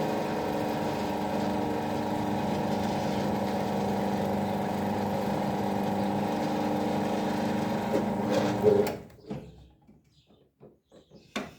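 Electric workshop machine motor running with a steady hum, briefly louder just before it is switched off about nine seconds in and winds down. A few sharp clicks follow near the end.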